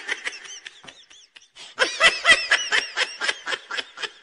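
Laughter sound effect: a little high-pitched giggling at first, then a long run of quick, rhythmic laughs from about two seconds in.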